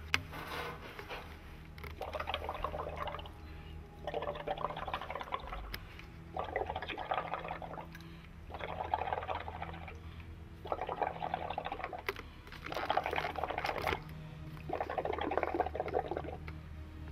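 Breath blown into a plastic container of soapy water, bubbling and gurgling in eight separate blows of about a second each, roughly every two seconds, over a steady low hum.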